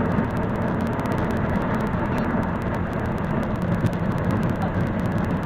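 Car cabin road and engine noise picked up by a dashcam, played back sped up into a dense, steady rumble and hiss with many faint clicks.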